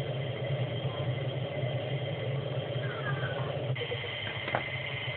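Turbine engines idling: a steady low drone under a steady high-pitched whine, with a single click about four and a half seconds in.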